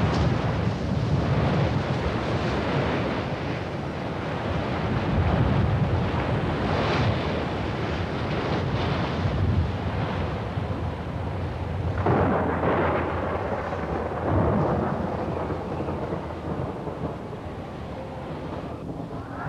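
Storm sound effects: heavy waves crashing against a sea cliff, with wind and a deep rumbling roar that swells in repeated surges.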